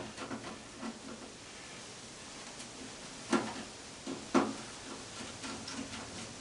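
A screwdriver working a gummed-up screw loose in an old fan's housing: a few faint ticks and two sharp clicks about a second apart.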